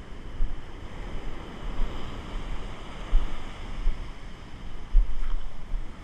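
Ocean surf washing up a sandy beach, with wind buffeting the microphone in several gusts, the strongest about three and five seconds in.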